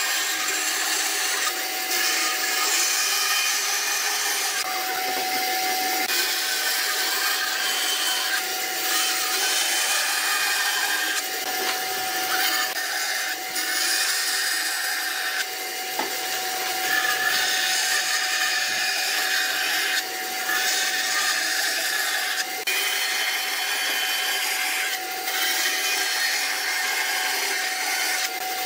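Band saw cutting a thick pine board along a curved line: the steady hiss of the blade in the wood over a constant machine hum, changing every few seconds as the board is fed and turned.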